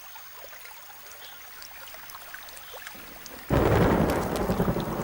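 A rainstorm breaking: quiet with a few faint drips, then about three and a half seconds in thunder and heavy rain start suddenly and loudly.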